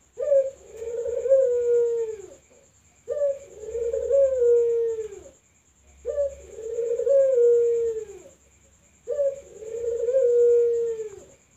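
Puter dove (Barbary dove) cooing: four repeated coos about three seconds apart, each a short higher note running into a long held note that falls away at the end.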